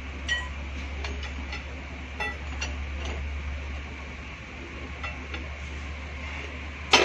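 Metal tyre tools clinking and tapping as a bus wheel is worked on, a scatter of short ringing clinks over a low steady hum, with one loud metallic clank near the end.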